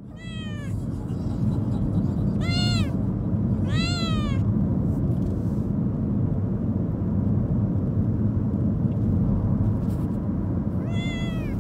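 Young black kitten, about two months old, meowing four times in high-pitched calls that rise and fall, over a steady low rumble. The owner wonders whether the constant crying comes from the unfamiliar place or from searching for her mother.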